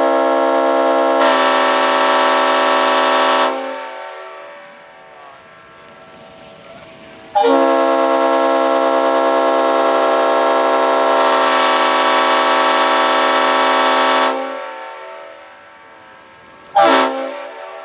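Multi-chime locomotive air horn blowing a chord of several tones: a blast that stops about three and a half seconds in, a second one of about seven seconds starting around seven seconds in, and a short toot near the end.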